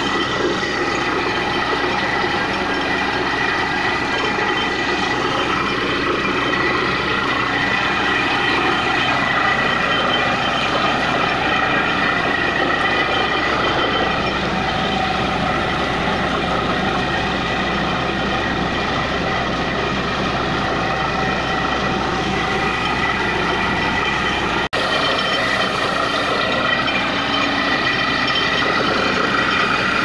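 Truck-mounted borewell drilling rig running: a loud, steady engine and air-compressor noise with a steady high tone. Compressed air is blowing water and rock cuttings up out of the bore.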